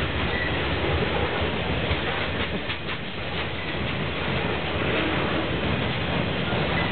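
CSX freight train's boxcars rolling past: a steady rumble of steel wheels on rail, with a few sharp clicks near the middle.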